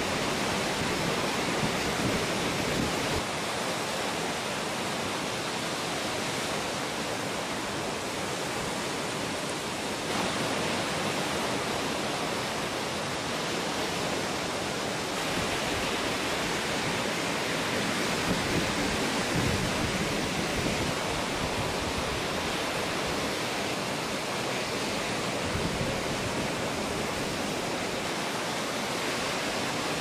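Steady rushing noise of ocean surf breaking on a reef, a constant wash that swells a little now and then.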